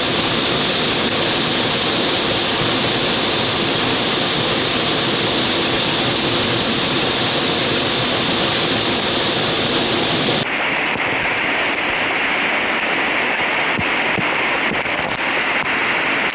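Steady rushing of a rainforest waterfall in heavy rain. About ten seconds in, the sound cuts abruptly to a duller rushing with scattered small ticks.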